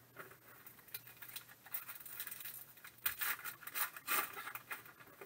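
Foil wrapper of a Panini Prizm trading-card pack being torn open and crinkled by hand, in quick irregular clusters of crackles that grow busier after the first second or so.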